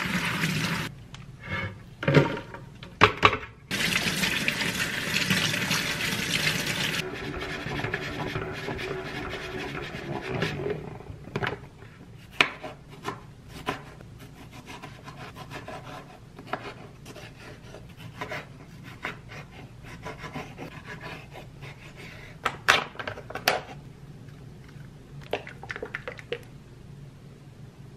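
Kitchen tap water runs onto shredded cabbage in a metal colander, stopping briefly and starting again, for the first several seconds. Then a small knife slices tomatoes on a wooden cutting board: a string of sharp taps and scrapes.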